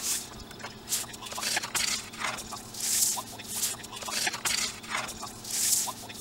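A sheet of paper handled on a wooden workbench: hands sweep and slide across it and a flat wooden stick is rubbed along it to crease a fold. The sound is a series of papery swishes and scrapes, the strongest two about three seconds in and near the end.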